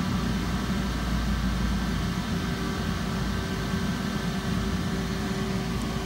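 Steady mechanical hum of a Lochinvar Power-Fin water heater's combustion blower fan, running on as the burner shuts down after its gas supply has been cut off; a steady low tone joins about two seconds in.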